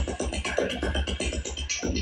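Improvised experimental electronic music: a fast, choppy run of short glitchy sounds over a pulsing bass.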